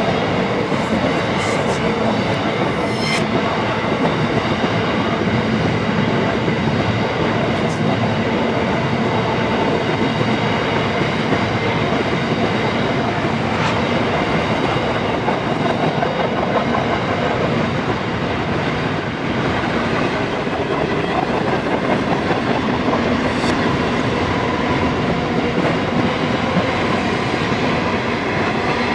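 Empty container flat wagons of a freight train rolling past at speed, a steady, unbroken noise of steel wheels on the rails.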